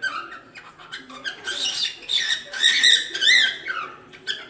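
Cockatiel singing: a run of short chirps and whistled notes, loudest in the middle, with a quick rising-and-falling whistle a little after three seconds in.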